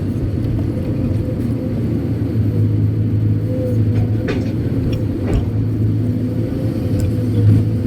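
Kobelco SK200-8 Super X excavator's four-cylinder diesel engine running steadily, heard from inside the cab, a low hum with a steady whine over it and a few faint clicks about four and five seconds in.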